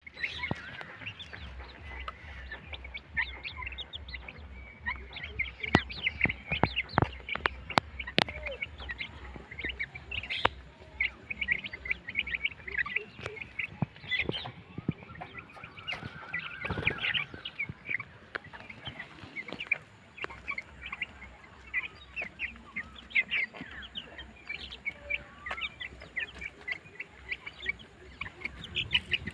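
A brood of Vanaraja chicks peeping continuously in many short, high chirps. A few sharp clicks come in the first third, over a low pulsing hum.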